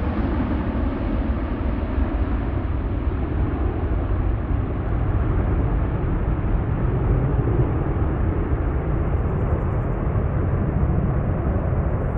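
Airbus A340-300 airliner's four CFM56 turbofan engines at take-off power, a steady deep rumble heard from behind as the jet climbs away. Its top end dulls slowly as the aircraft recedes.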